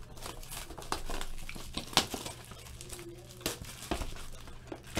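Clear plastic shrink-wrap crinkling and crackling as it is pulled off a sealed trading-card box, in irregular bursts with the sharpest crackle about two seconds in.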